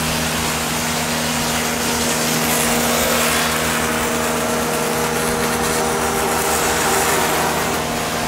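Pulse MIG welding on steel bumper tubing: a steady hissing crackle over a constant machine hum.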